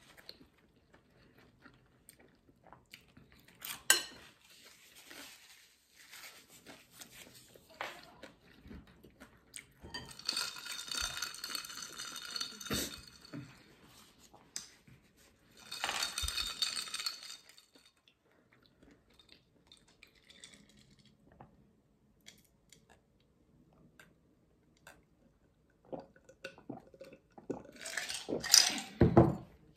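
Close-miked eating at a table: chewing, with scattered clicks and clinks of utensils on dishes and a sharper knock about four seconds in. There are two spells of rustling about a third and halfway through. Near the end come loud gulps from a glass of drink.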